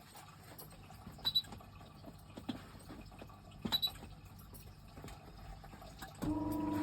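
Sleeping baby's snoring: short squeaky snores on the breath, about one every second and a bit, two of them louder than the rest. A steady humming tone starts near the end.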